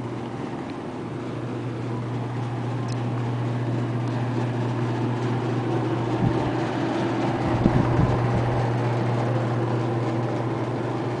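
A steady low hum over an even hiss, like room ventilation or a camcorder's own running noise, with a few low bumps about six to eight seconds in from the handheld camera being moved.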